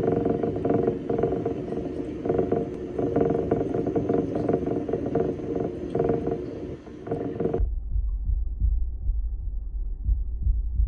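Steady churning rush of water and pump in a lure-testing water tank. About two-thirds of the way through it drops suddenly to a deep low rumble: the same noise slowed to one-eighth speed.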